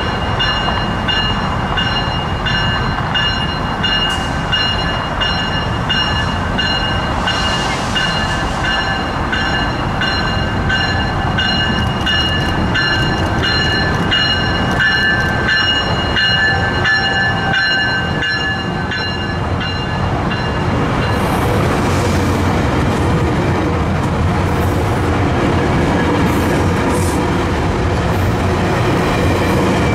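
Grade-crossing warning bell ringing repeatedly as a Tri-Rail bi-level commuter train rolls in. The bell stops about twenty seconds in, and the low rumble of the passing train's cars and wheels grows louder toward the end.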